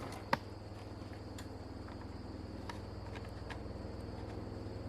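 Steady high trill of crickets over a low steady hum, with one sharp click about a third of a second in and a few faint ticks.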